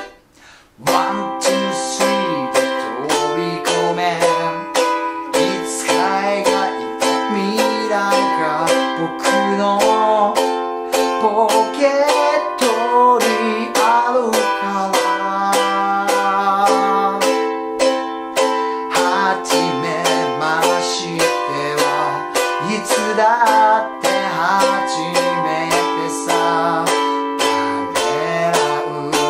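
Small ukulele strummed in a steady rhythm of chords, with a man singing the melody along with it. The strumming stops dead for under a second at the start, then picks up again.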